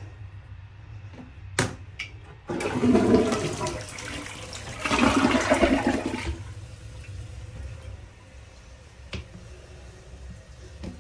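Two-piece toilet flushing: a click, then water rushing through into the bowl for about four seconds in two surges, the second the loudest, fading to a low hiss. It is the first flush after the tank was refitted on a new tank-to-bowl gasket.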